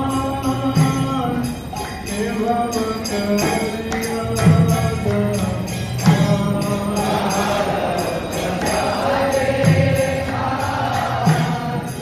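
Devotional kirtan: a group of devotees chanting and singing together, with hand cymbals (kartals) keeping a steady, regular beat.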